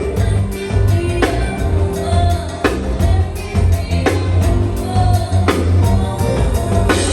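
Live band playing with singing, a heavy bass line and drum kit, with a loud full-range hit about every second and a half.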